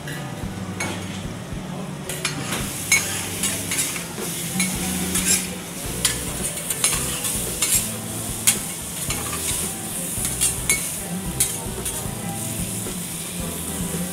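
Food sizzling on a hot steel teppanyaki griddle, with metal spatulas scraping and tapping against the plate in a quick, irregular clatter from about two seconds in.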